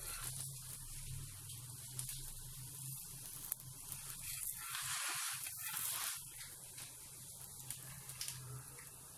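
Stuffed radish paratha frying in olive oil on a hot tawa, the oil sizzling with a steady hiss that swells about halfway through. A few light clicks of a metal spatula against the pan.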